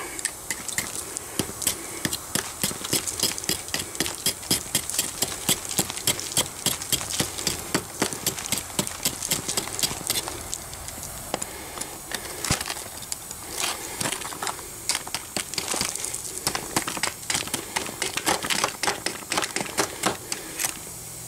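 Metal tongs and pliers scraping and tapping through packed casting sand in a steel tray, breaking it away from a freshly poured copper-alloy casting: a run of irregular clicks, scrapes and crumbles.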